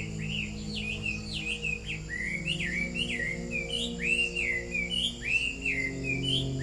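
Songbirds chirping in a busy run of short, swooping calls, over a soft ambient music pad of steady held low tones.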